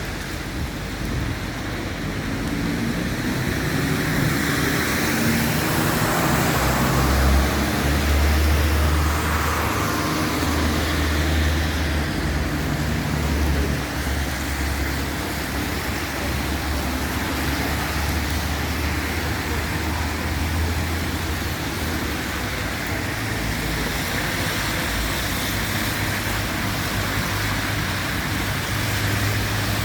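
Road traffic in the rain, with steady noise throughout; a vehicle's low engine hum builds and passes close between about five and fourteen seconds in.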